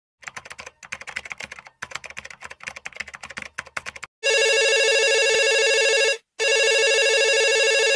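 Rapid, irregular keyboard-typing clicks for about four seconds, then a telephone ringing: two long, buzzy rings of about two seconds each, with a short break between them.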